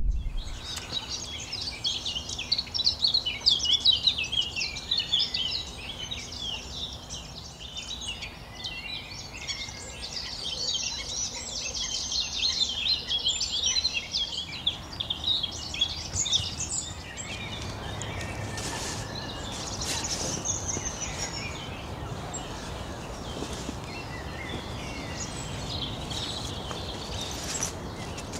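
Many small birds singing and chirping together, a busy chorus of quick, high notes that thins out about halfway through.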